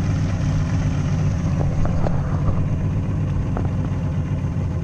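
Outboard motor running at low trolling speed, a steady low drone, with a few faint ticks about two seconds in.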